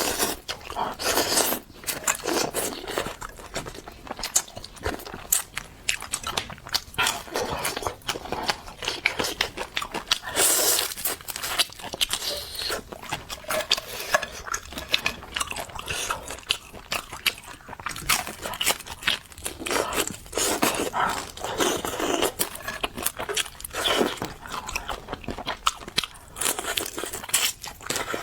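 Close-miked eating: a person chewing and biting food in a steady run of crunchy, crackling mouth sounds, with louder bites every second or so.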